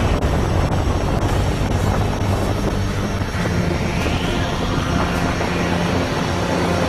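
Loud, steady machine drone with a low hum under a noisy rush, like a big engine or fan. About halfway through, a whoosh rises and then falls in pitch.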